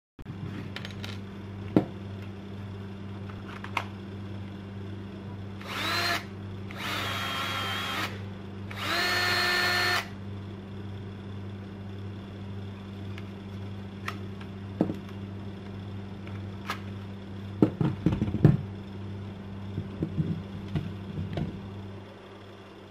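Bosch 18V cordless drill's motor run in three short bursts about a second each, whining up to speed with the last run the loudest; this is the drill whose motor throws sparks. Clicks and knocks of the drill being handled come before and after, over a steady low hum.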